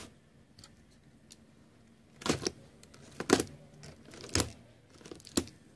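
Packing tape and cardboard on a parcel being slit open with a pointed tool: four short, sharp cutting strokes about a second apart, starting about two seconds in.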